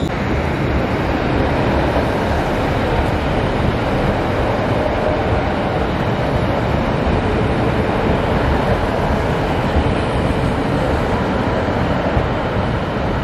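ScotRail Class 156 diesel multiple unit pulling out close by, its underfloor diesel engines running and wheels rolling on the rails in a steady, loud rumble.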